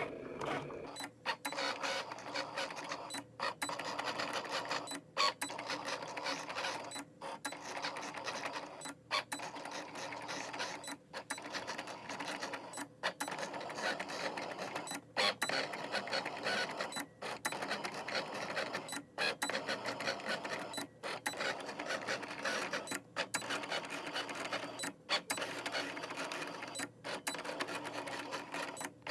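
Cricut Explore Air 2 cutting machine running a cut in vinyl: the motors drive the blade carriage and the mat rollers in a busy mechanical whirring. The whirring breaks off in brief pauses about every two seconds.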